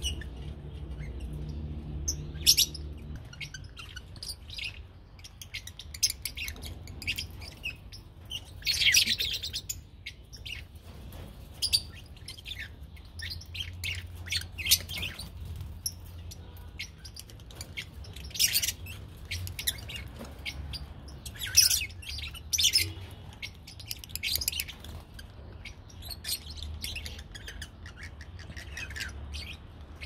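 A colony of lovebirds chattering: many short, sharp, high-pitched chirps and shrieks overlapping in irregular bursts. The loudest calls come about nine, eighteen and twenty-one seconds in.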